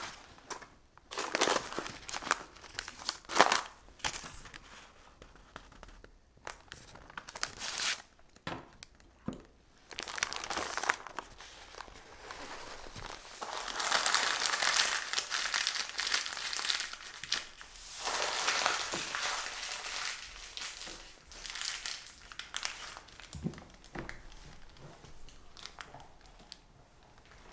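Baking parchment paper crinkling and rustling as it is rolled tightly around a sponge roll cake and its ends are twisted shut. The crinkling comes in short crackles at first and is heaviest and most continuous in the middle.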